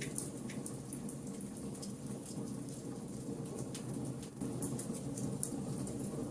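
Wood fire burning in a fireplace: many small crackles and pops scattered over a steady low rumble of the flames.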